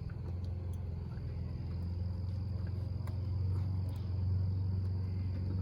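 Crickets trilling steadily over a steady low hum, with a few faint small clicks.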